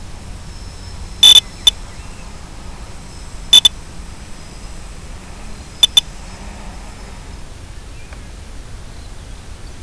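Steady hiss of static, broken three times, about two seconds apart, by a loud, high-pitched electronic double beep.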